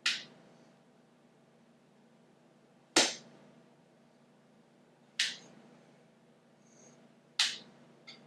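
Pencil strokes on paper as lines are darkened: four quick, sharp strokes a couple of seconds apart, each starting hard and fading fast, with a fainter one near the end.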